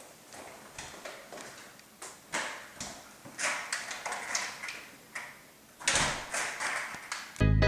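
A front door being opened and handled, with clicks, bumps and footsteps at irregular intervals and a louder knock about six seconds in. Music cuts in abruptly at the very end.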